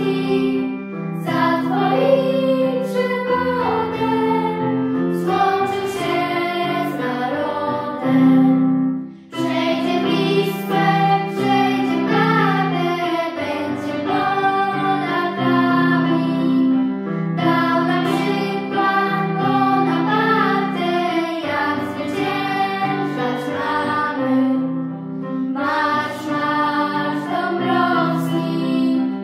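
A small group of children singing a song together in unison, over a steady instrumental accompaniment, with a short break between phrases about nine seconds in.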